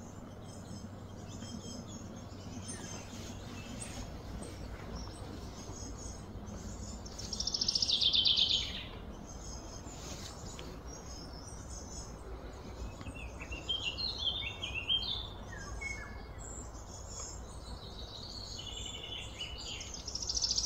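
Birds chirping and calling over a steady low outdoor background hum, with a louder rapid trill about eight seconds in and a cluster of quick calls around fourteen seconds in.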